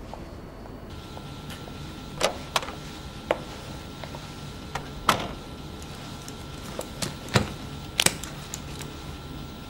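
Scattered sharp clicks and knocks of handling over a low steady hum, ending in a quick double click as a briefcase's catches snap open.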